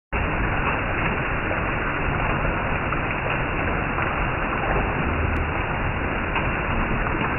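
Heavy rain falling steadily on a roof and on leafy trees, a constant even patter and hiss.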